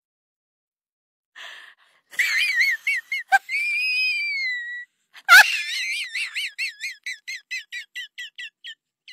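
Whistle tones: a warbling run, then one long gliding note, broken by two sharp clicks. After the second, louder click comes a series of short repeated whistle chirps that grow quicker and fainter.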